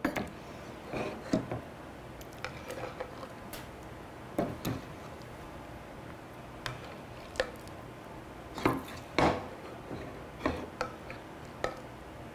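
A ladle knocking and scraping against a stainless-steel pot as milk is scooped out and ladled into a clay baking dish: scattered clinks and knocks, a few sharper ones about halfway through and a little after.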